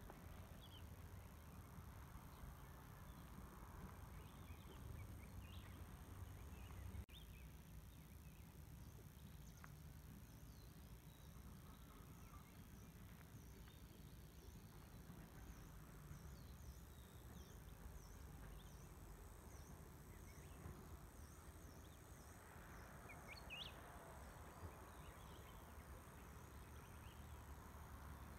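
Near silence: faint outdoor ambience with a low rumble and a run of faint, evenly repeated high chirps.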